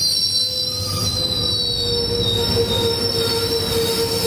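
Metrolink bilevel passenger cars rolling along a station platform, with a steady high-pitched squeal from the wheels over a low rumble.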